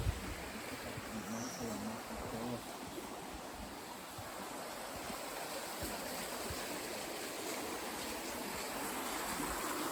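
Steady rushing of a stream or river, an even wash of water noise, with a few soft low thumps.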